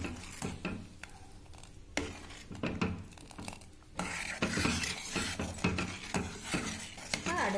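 Steel ladle stirring thick payasam in a pot, clinking and scraping against the pot's side and bottom. A sharp clink comes about two seconds in, and the stirring gets busier from about halfway.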